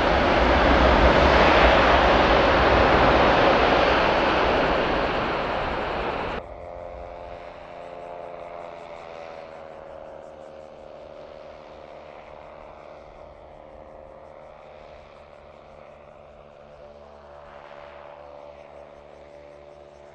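Japan Airlines Boeing 767 jet engines running loud on the landing roll-out, a dense steady roar. About six seconds in it cuts off abruptly to a much quieter steady hum with several steady tones from the parked airliner and the apron equipment.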